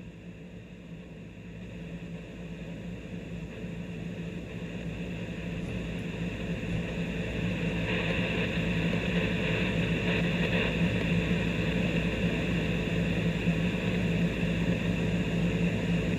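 Steady static hiss with a low hum from a Motorola HT1250 handheld radio's speaker, with no voice on the channel. It grows louder over the first eight seconds or so, then holds steady.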